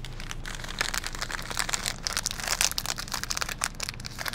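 Crinkly plastic wrapper of a cheese-crisp snack bar being handled and turned over in the hands, a dense run of crackles starting about a second in and fading near the end.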